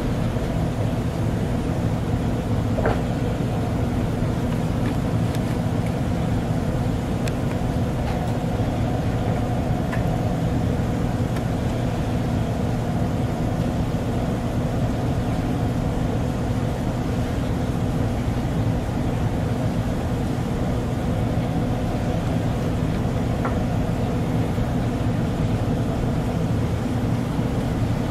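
Steady low mechanical hum with a couple of faint light clicks.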